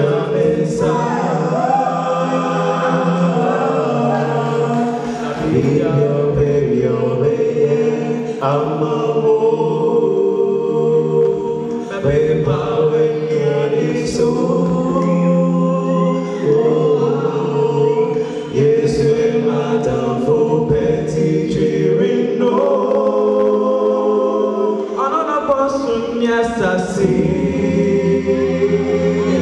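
Choir singing a gospel worship song, many voices holding long notes together.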